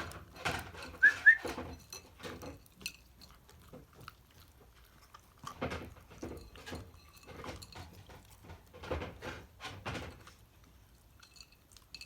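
Shiba Inu eating, with bursts of short crunching and smacking strokes in three spells. About a second in, the dog gives two short, high, rising whimpers.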